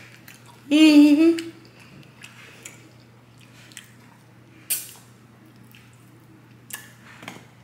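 A short hummed "mmm"-like voice sound about a second in, then quiet eating noises: a few sharp mouth clicks and smacks while she eats. A steady low hum sits underneath.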